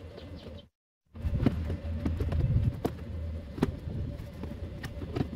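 Scattered clicks and knocks of hand work on a pickup's dashboard and steering column, over a low steady hum. The sound cuts out completely for a moment about a second in.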